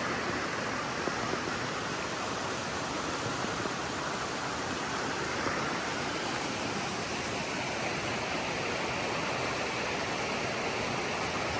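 Steady rush of a mountain river's water tumbling over rocks, an even, unbroken noise.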